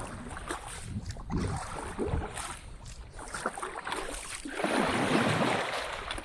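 Wind buffeting the microphone on a kayak at sea, with water splashing and lapping against the hull; a longer rush of water begins about four and a half seconds in.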